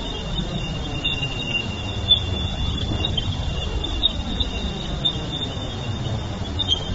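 Spacecraft radio and plasma wave recording converted to audio: a steady, dense rumbling hiss with a thin, flickering high band running over it.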